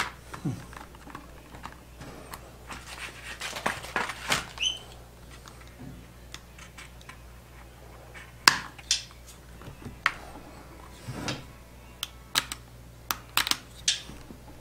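Scattered light clicks, taps and scraping as a hand tool works vinyl decal film into the edges of a motorcycle helmet's plastic shell. The clicks bunch together in the second half, over a faint steady hum.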